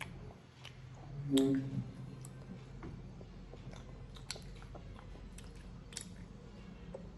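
A person chewing a mouthful of chicken biryani, with scattered wet mouth clicks and smacks. About a second and a half in there is a short, louder pitched sound, like a hum.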